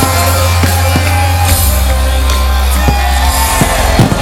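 Live jam band playing loud through a festival sound system, with deep held bass notes and steady drum hits.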